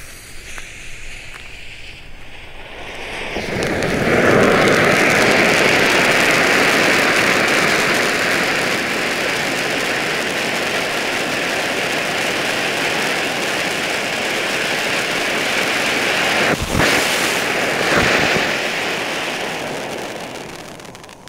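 Ground fountain firework burning. The fuse fizzes quietly at first, then about three to four seconds in it bursts into a loud, steady rushing hiss of spraying sparks, which dies away just before the end. Two sharp cracks sound in the last few seconds, about a second apart.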